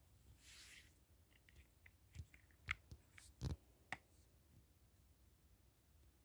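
Faint handling noise of a phone moved about in bedding: a brief rustle, then a handful of soft clicks and knocks over the next few seconds, the loudest two about a second apart, then near silence.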